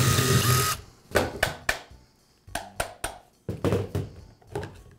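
Cordless impact driver running for under a second, backing out a screw from a reciprocating saw's aluminium gearbox housing, then a series of short clicks and knocks as the screws and tools are handled and the gearbox is pried open with a screwdriver.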